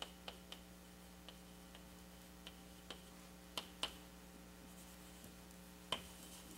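Quiet room tone with a steady low hum and a scattering of faint, sharp clicks or taps at irregular spacing, the most distinct two close together about three and a half seconds in and one near six seconds.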